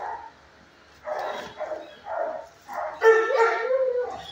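Dog barking in a kennel: a few short barks about half a second apart, then a longer, louder call that wavers in pitch about three seconds in.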